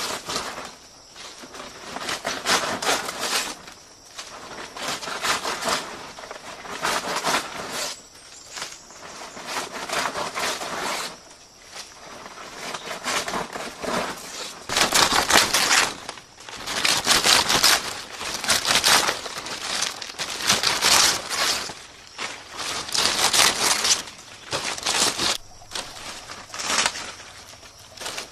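Long green leaves rustling and crackling in repeated bursts every second or two as they are pulled from plants and handled.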